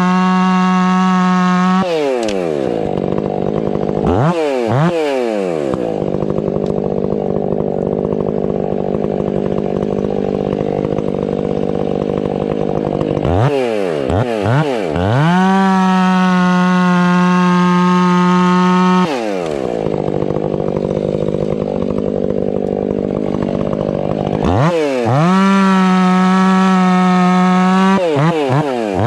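Stihl 500i fuel-injected two-stroke chainsaw bucking firewood: it screams at full throttle, then its note drops and turns rough as the chain bites into the log. This happens twice, each cut lasting several seconds, with the saw revving back up between them.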